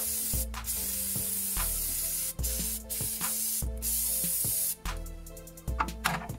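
Aerosol brake cleaner spraying onto a car's disc brake assembly in a few long bursts with brief breaks, stopping about five seconds in.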